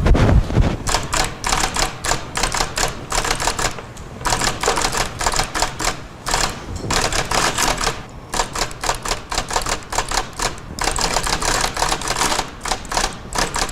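Manual typewriter being typed on fast: bursts of rapid clattering keystrokes separated by short pauses. A heavy thump right at the start is the loudest moment.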